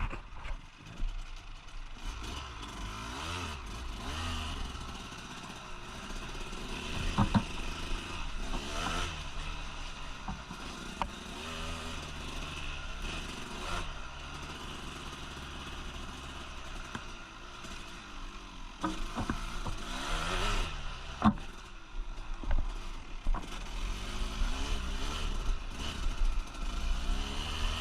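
Two-stroke trail motorcycle engine revving up and down, its pitch rising and falling repeatedly, with a few sharp knocks and clatter.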